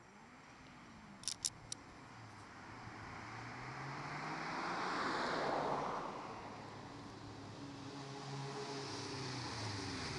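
Motorcycle engine of a 1988 Honda Hurricane 600, an inline-four, heard from down the street. Its pitch rises and falls as it is ridden. It swells to its loudest about halfway, fades, then grows again near the end as the bike approaches.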